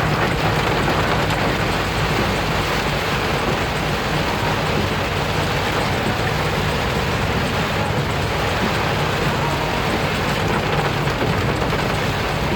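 A vehicle driving in rain: a steady wash of rain and wet road noise over a low, even hum.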